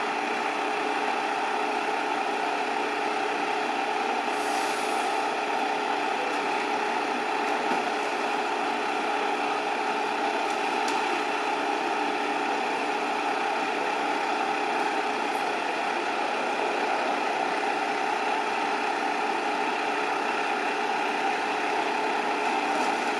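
Steady engine idle from emergency equipment at a crash scene, with a brief high hiss about four and a half seconds in.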